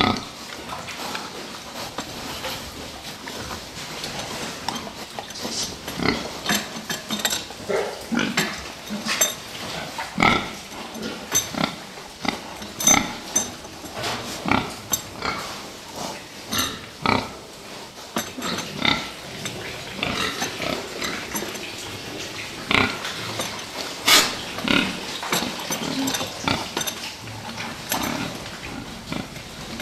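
Fattening pigs in a pen grunting, many short, irregular grunts one after another, mixed with sharp clicks.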